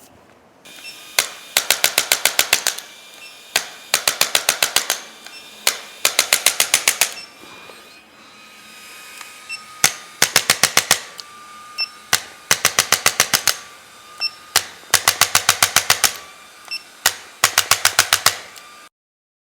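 Repeated bursts of sharp, rapid mechanical clicks, about ten a second, each burst around a second long and often preceded by a single click, with short pauses between; the pattern of a handheld chiropractic adjusting instrument delivering rapid thrusts. The sound cuts off abruptly near the end.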